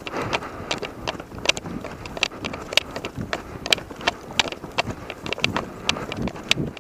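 Brisk footsteps swishing through wet grass and brush, about two or three a second, with wind noise on the microphone.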